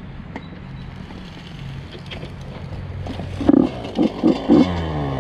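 Small off-road vehicle engine idling steadily, then revved in several quick blips starting about three and a half seconds in, its pitch climbing near the end.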